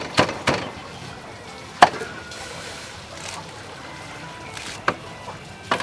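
A kitchen knife cutting leafy green vegetable stems on a wooden board: a handful of sharp, irregular cuts, the loudest about two seconds in, over a faint steady hiss.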